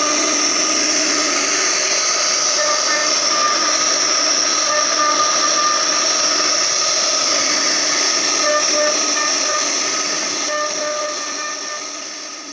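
CNC router spindle whining steadily as its bit carves a relief pattern into wood, the cutting noise mixed in with the motor's steady tones. The sound fades out near the end.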